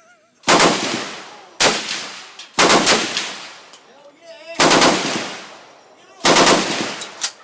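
Five single shots from a carbine rifle, fired one at a time with irregular gaps of one to two seconds. Each shot is a sharp crack that rings off into a long echo.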